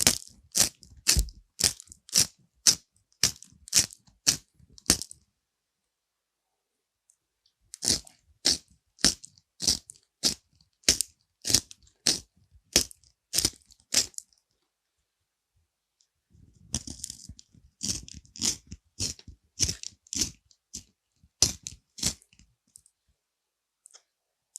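Pencil writing on paper: scratchy strokes, about two a second, in three runs with pauses of a couple of seconds between them.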